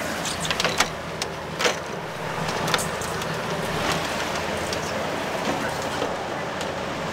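Fishing boat's engine running steadily under wind and water noise, with scattered light clicks and knocks.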